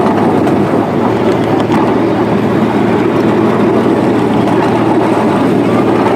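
Miniature ride-on train running along its track, heard from aboard: a steady, unbroken running noise of the wheels and train.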